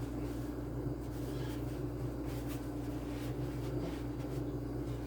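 Steady low mechanical hum with a few faint clicks and light knocks over it.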